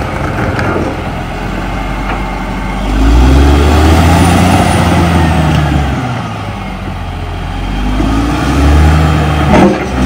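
Caterpillar D6R XL crawler bulldozer's diesel engine running, revving up about three seconds in and easing off around six seconds, then pulling up again near the end. A sharp knock comes just before the end.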